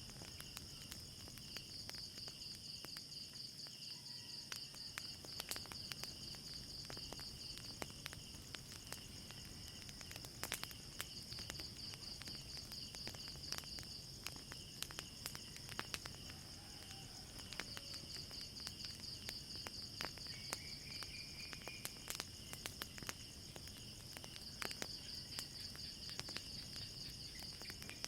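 Crickets chirping in a steady, pulsing high trill, with scattered sharp crackles and pops from a wood fire throughout.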